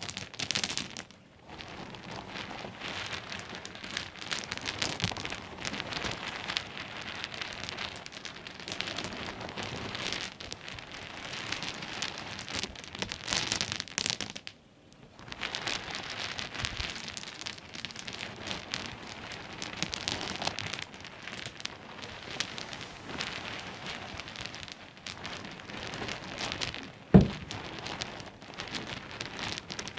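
Small pebbles clicking and rattling against each other in a dense, rapid clatter, with short pauses about a second in and about halfway through, and one louder knock near the end.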